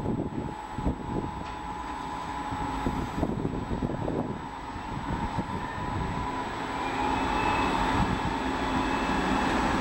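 Red Munich S-Bahn electric multiple unit pulling into the platform: wheels rumbling on the rails under a steady electric whine, growing louder as the train comes alongside.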